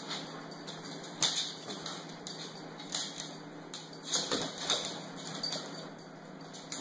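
Claws of two playing dogs, a husky among them, clicking and scrabbling on a hardwood floor in irregular bursts, with a few sharper knocks.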